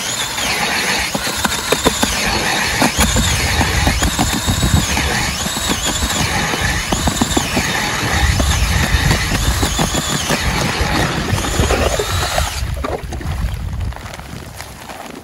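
Cordless drill spinning a steel ice auger down through thick lake ice: a motor whine that rises and falls about once a second under load, over the grinding crunch of the blades cutting ice. It stops near the end as the auger is lifted out.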